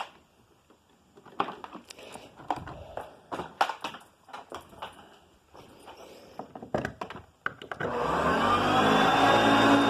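Scattered plastic clicks and knocks of the vacuum being handled, then about eight seconds in the self-propelled Hoover Concept One vacuum cleaner switches on and its motor spins up, rising in pitch and settling into a steady whine.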